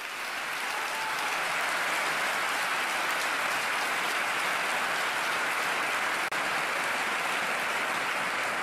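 A large crowd applauding, building over the first couple of seconds and then holding steady.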